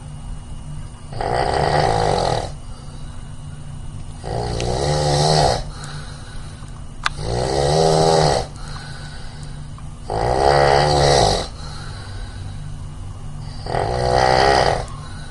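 A person snoring loudly and regularly: five snores about three seconds apart, each lasting a little over a second, with a wavering, rattling pitch. A steady low hum runs beneath the snores.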